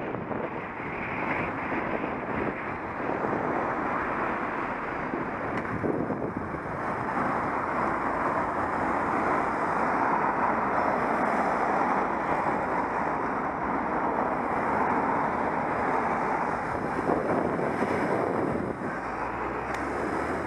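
Wind rushing over a bicycle-mounted camera's microphone while riding on the road, with tyre and traffic noise mixed in as a steady rushing, a little stronger about a third of the way in.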